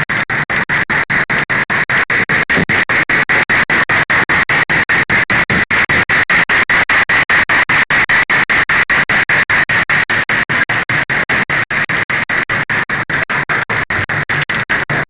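Loud steady hiss of rain. It is chopped by brief, regular dropouts about five times a second, giving a stuttering, broken-up sound.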